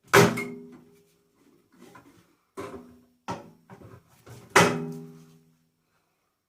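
Metal parts of a microwave being knocked and handled as it is stripped for scrap: a loud clang at the start and another about four and a half seconds in, with a few lighter knocks between, each ringing briefly.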